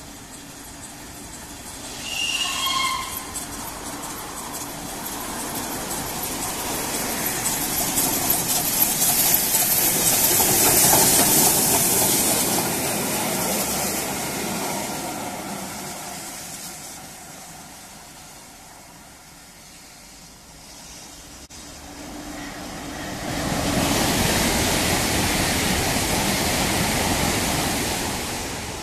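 Steam locomotive 60163 Tornado, an LNER A1 Pacific, running past hauling a rake of coaches: the train noise builds to its loudest about ten seconds in, then fades as it draws away. A brief high tone sounds about two seconds in, and a second loud rushing noise rises near the end.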